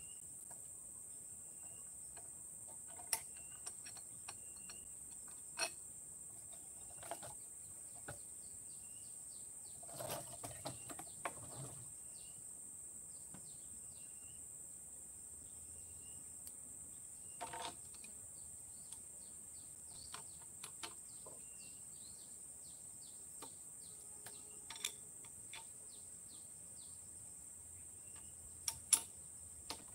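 Steady high-pitched drone of insects, with a short chirp repeating every couple of seconds. Scattered faint clicks and knocks come through, a cluster about ten seconds in and the sharpest near the end. The chainsaw is not running.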